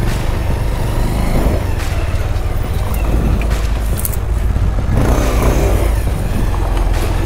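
Single-cylinder motorcycle engine running steadily at low speed on a loose stony dirt track, with a low rumble throughout. Louder bursts of noise come about a second and a half in and again around five seconds in.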